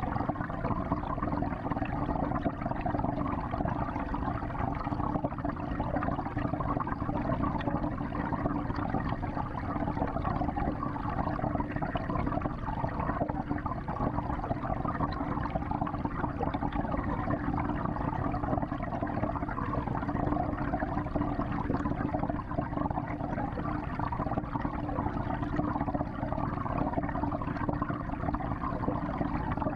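Steady churning and bubbling of water in a 55-gallon aquarium, heard from inside the tank.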